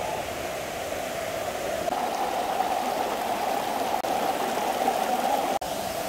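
Steady rush of water flowing over the rocks of a forest stream below a waterfall, with a brief break near the end.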